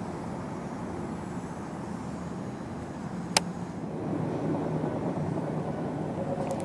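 Steady low hum of road traffic, growing a little louder in the second half, with one sharp click about three and a half seconds in.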